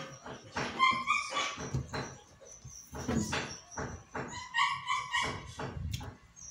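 A dog whimpering in short high whines, once about a second in and again around the five-second mark, over clicks and scrapes of a spoon on a plate.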